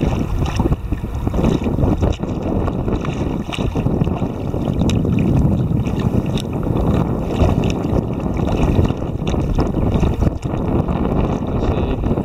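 Wind buffeting the microphone of a camera on a kayak's bow, a loud steady rumble, with small slaps and splashes of choppy water against the hull throughout.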